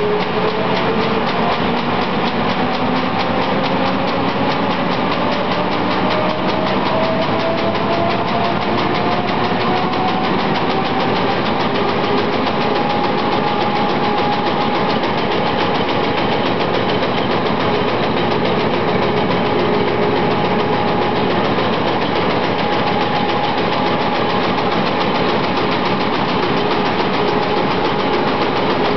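Web-fed newspaper printing press running, a dense steady mechanical clatter. A whine within it rises in pitch over the first dozen seconds as the press speeds up, then holds steady.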